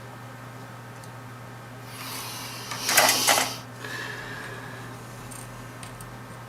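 A brief clatter of small tools and parts being handled on a workbench during soldering, with a few sharp clicks about three seconds in, over a steady low hum.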